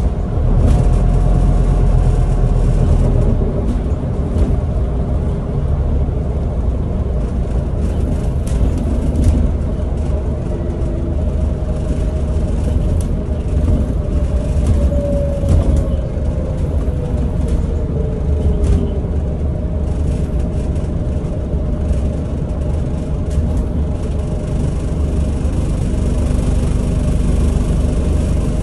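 Inside a Scania Citywide articulated city bus under way: steady low engine and road rumble, with a few light rattles and a faint whine that slides down in pitch about halfway through.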